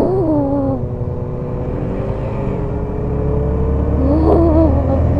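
Motorcycle engine running under way, with road and wind noise. Its note rises slowly, and it grows louder over the last couple of seconds as the bike picks up speed.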